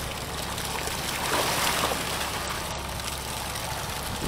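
Sea water sloshing against a fishing boat's hull, with a louder wash of water about a second and a half in, over the low steady hum of the boat's idling engine.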